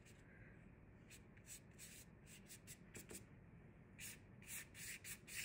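Faint strokes of a paintbrush brushing paint onto paper: a series of short swishes that come closer together after about four seconds.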